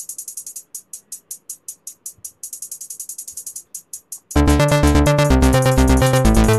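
Electronic background music. It opens with a fast, high ticking beat on its own, and about four seconds in the full track comes in louder, with a heavy bass beat and a synthesizer melody.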